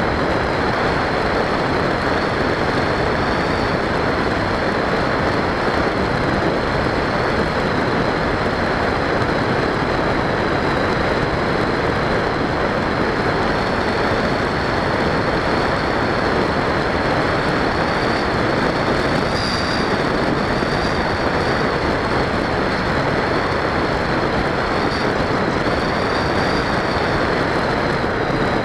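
Easystar 2 RC model aircraft in flight, heard from its onboard camera: a steady rush of air noise with a thin high whine that wavers slightly in pitch.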